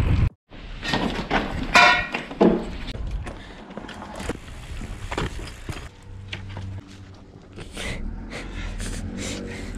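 A blue folding platform being unfolded and set up on grass: a series of sharp clicks, knocks and rattles from its hinged frame and panels. There is a brief pitched squeak about two seconds in.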